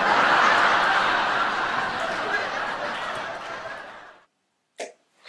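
A person's long, breathy sigh, loudest at first and fading out after about four seconds.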